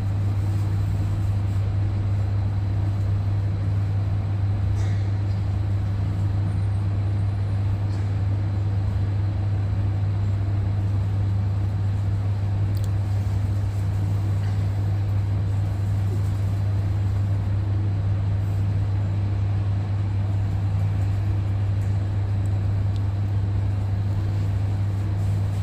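Steady low drone inside a jet airliner's cabin on the ground, with a strong constant low hum from the engines and air system and no change in pitch.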